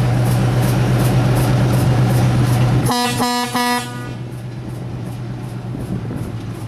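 Diesel locomotives running and moving off, the engine sound loud and steady. About three seconds in, a locomotive horn gives three quick short toots. After the toots the engine sound drops away as the locomotives move off.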